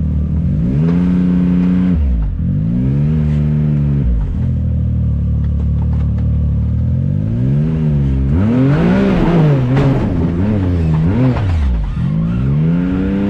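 Can-Am Maverick X3 side-by-side's turbocharged three-cylinder engine revving up and down repeatedly under throttle. The revs rise and fall several times in quick succession past the middle.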